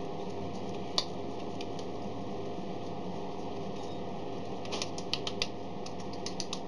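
Small sharp clicks and taps of kitchen handling, one about a second in and a quick run of them near the end, over a steady background hum.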